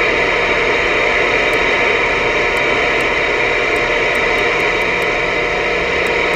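Steady hiss of band noise from a Voyager VR9000 CB radio's speaker, squelch open, as the receiver is stepped channel by channel through the 26.7–26.8 MHz lowers with no signals coming through. Faint clicks come and go as the channel knob is turned.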